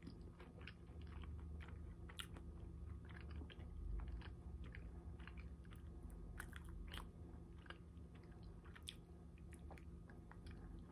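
A person chewing a soft bite of a fish sandwich with tartar and Big Mac sauce, close to the microphone: faint, irregular small wet clicks and smacks of the mouth.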